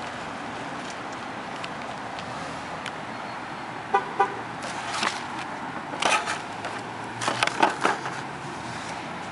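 Steady street traffic noise, with a short double toot of a car horn about four seconds in, followed by several louder sharp noises in the second half.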